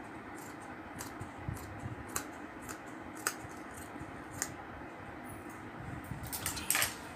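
Scissors snipping through net lace fabric in short irregular cuts, about two a second, with a louder rustle and scrape near the end.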